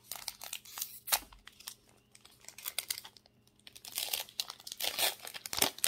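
Foil Pokémon card booster pack wrapper crinkling and crackling as it is handled and torn open by hand, in crisp bursts with a quieter stretch in the middle.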